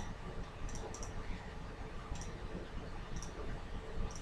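Computer mouse button clicking, about six short separate clicks, two of them close together about a second in, over faint room hum.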